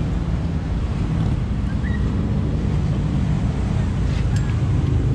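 Wind buffeting the microphone, a steady low rumble, with a single small click about four seconds in.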